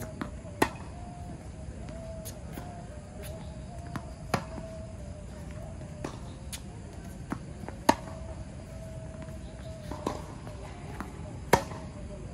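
Tennis rally on a hard court: rackets striking the ball in turn make sharp pops, the loudest coming about every three and a half seconds, with fainter knocks of ball bounces and the far player's shots between them.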